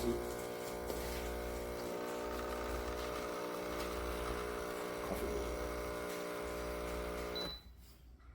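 CASABREWS espresso machine's pump buzzing steadily while it runs, then cutting off about seven and a half seconds in.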